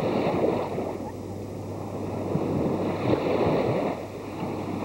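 Small surf washing in shallow sea water, with wind on the camcorder microphone, over a steady low hum.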